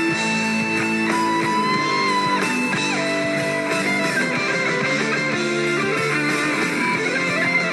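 Live rock band playing, with electric guitar to the fore over bass and drums; held and bending notes run through the passage without a break.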